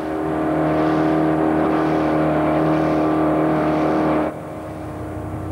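Small motorboat's engine running fast at a steady pitch, with water rushing past the hull. About four seconds in the engine note drops away suddenly, leaving a lower hum.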